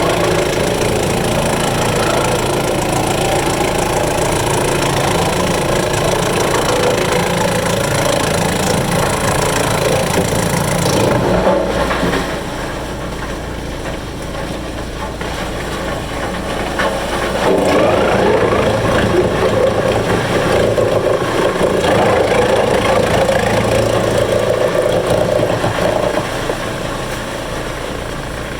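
Engine-driven wood chipper running loudly and steadily. The sound drops about twelve seconds in and rises again from about eighteen seconds until near the end.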